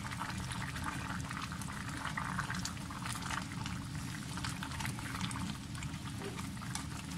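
Chicken sotanghon broth bubbling at a boil in a wide pot: a steady crackling bubble over a constant low hum.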